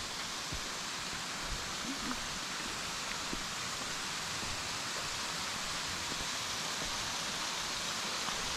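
Waterfall: a steady, even hiss of falling water, with a few faint knocks in the first few seconds.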